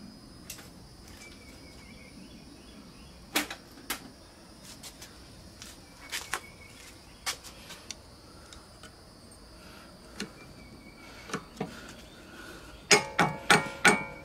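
Screwdriver clicking and scraping against the metal starter clutch on an old Briggs & Stratton engine's flywheel. Near the end comes a quick run of sharp metallic taps that ring, as the clutch is tapped to free it.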